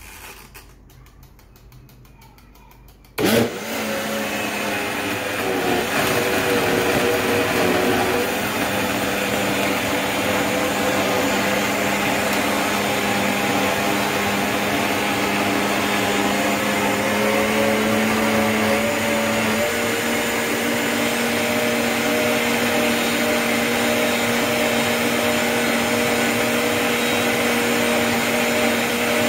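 Biolomix 2200 W blender, its dial clicking faintly before the motor starts suddenly about three seconds in and runs steadily, blending greens, nuts and liquid into a smoothie. The motor's pitch steps up slightly about two-thirds of the way through.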